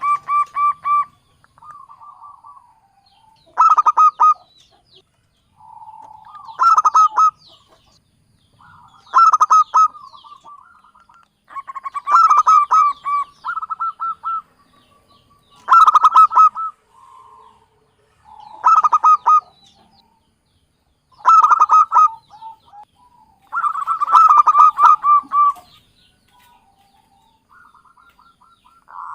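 Zebra dove (local Javanese perkutut) cooing: loud phrases of quick, stuttering notes repeated about every three seconds, with softer coos in between.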